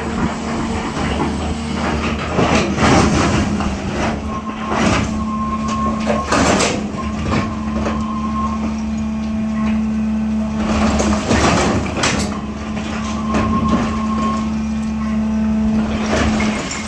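SANY 365H long-boom excavator's diesel engine running steadily, with a high hydraulic whine that comes and goes and scattered sharp knocks and scrapes.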